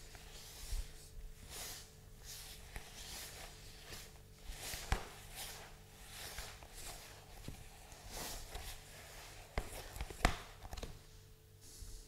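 Wooden spoon stirring a stiff, floury rye-flour dough in a plastic mixing bowl: repeated soft scraping strokes, with a few sharp knocks of the spoon against the bowl.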